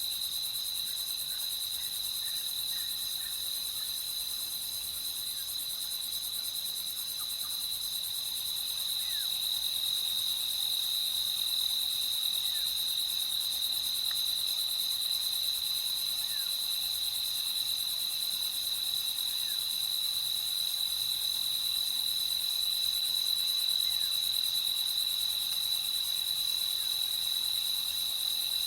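A chorus of night insects, crickets, trilling steadily at a high pitch, with a faint short chirp here and there.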